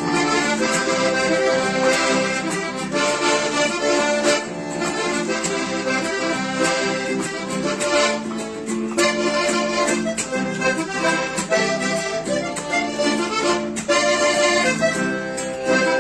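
Accordion playing a Panamanian cumbia, a quick steady rhythm with sustained reed chords and a busy melody line.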